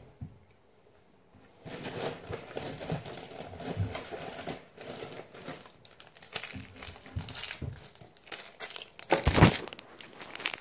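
Crinkly snack packets rustling and crumpling as hands rummage through a kitchen cupboard, with one sharp knock near the end.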